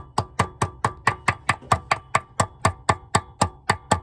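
Hammer tapping rapidly and steadily on gasket material laid over the supercharger's top flange, about four to five light strikes a second, each with a short metallic ring. The taps press the flange edge into the material to mark the outline of a new gasket.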